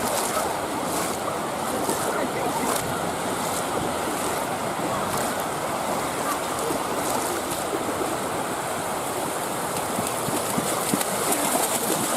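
Sea waves washing onto the shore: a steady wash of surf.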